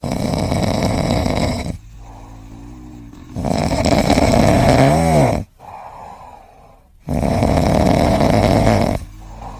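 Loud snoring: three long, rough snores about three and a half seconds apart, with quieter breathing between them.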